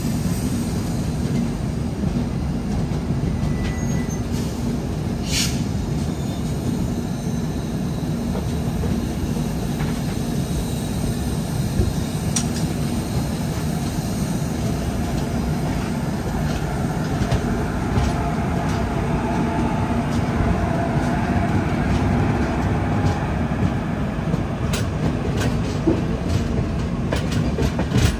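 Loaded goods train of hopper wagons rolling past on the rails, a steady deep rumble, with WAG-5 electric locomotives going by in the second half. Wheel clicks over the rail joints grow more frequent near the end.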